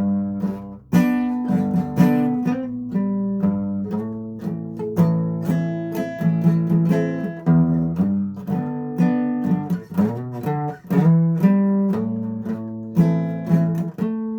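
Acoustic guitar being played, plucked and strummed notes and chords ringing out and decaying one after another.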